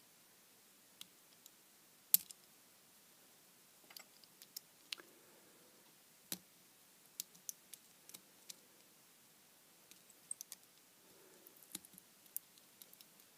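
Faint, scattered clicks and ticks of a small screwdriver picking silicone rubber potting off a miniature LED lamp, with light scraping in places; the loudest click comes about two seconds in.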